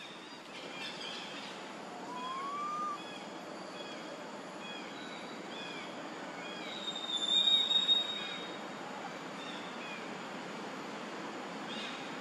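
Outdoor ambience with birds calling: repeated short, arched high notes throughout, a rising whistle about two seconds in, and a loud, steady high-pitched tone lasting about a second around seven seconds in.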